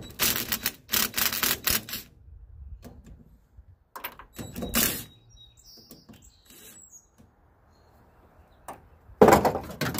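Cordless impact driver hammering as it backs out 7/16-inch bolts holding the steel wire fan grate of an AC condenser unit. It goes in three rattling runs: through the first two seconds, briefly around the middle, and loudest near the end.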